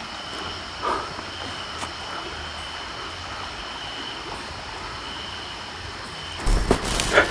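A person moving through brush and undergrowth at night: a short rustle about a second in, then near the end a loud burst of rustling, steps and handling noise on the microphone. A faint steady high-pitched trill runs underneath.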